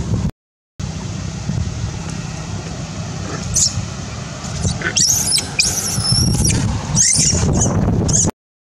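Baby macaque giving a series of short, high-pitched squeals: distress screams while an adult monkey pins and handles it. The squeals start about three and a half seconds in and come thickest near the end, over a steady rumble of wind on the microphone.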